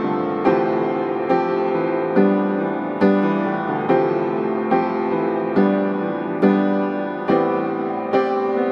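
Background keyboard music: soft pitched notes struck at an even pace, a little faster than one a second, each fading before the next.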